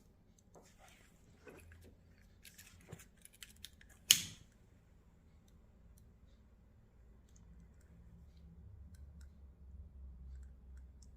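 Small clicks and light handling noises of automotive wires and a crimp-type shrink-tube connector being fitted by hand, with one sharp click about four seconds in. A faint low hum builds in the second half.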